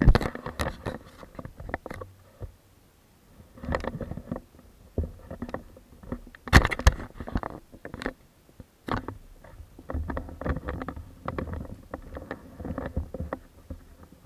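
Handling noise from a hand-held action camera: irregular knocks, scrapes and fingers rubbing on the case. The loudest knock comes about halfway through, after a short quiet spell near the start.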